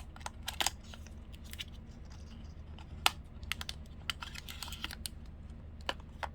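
Blind-bag enamel pin packaging being handled: scattered light clicks and crinkles, with a brief crinkling spell about four seconds in, over a steady low hum.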